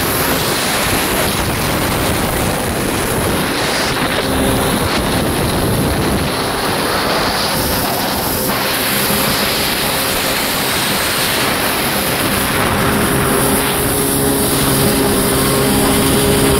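1993 Kawasaki 650SX stand-up jet ski under way at speed. Its two-stroke twin engine runs steadily under a loud rush of water spray off the hull and wind on the microphone.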